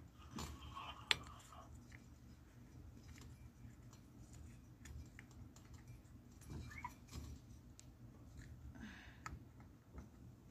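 Faint scattered clicks and light taps of small metal and rubber parts being handled and fitted into an opened truck air valve housing, with one sharp click about a second in.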